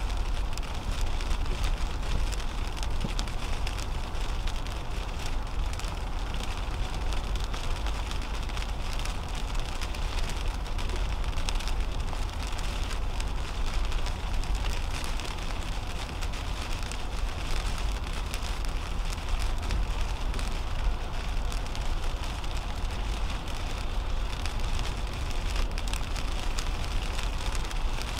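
Raindrops pattering on a car's Rain-X treated windshield over a steady low rumble of tyres on a wet highway, heard from inside the cabin of a 2010 Toyota Camry at highway speed.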